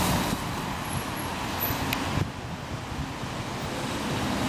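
Road traffic on a wet street: car tyres hissing over wet tarmac with engines passing, an engine hum building again near the end as more vehicles approach.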